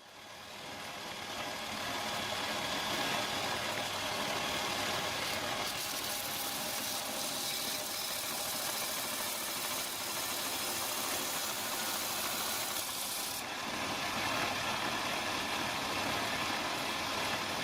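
Power tool motor running steadily under load, building up over the first couple of seconds.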